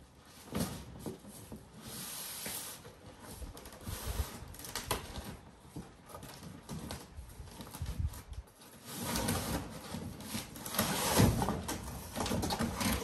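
Cardboard box being handled: flaps rustling and scraping, with scattered knocks and thumps, and a longer, louder stretch of scraping from about nine seconds in as the box is lifted off the power cutter inside.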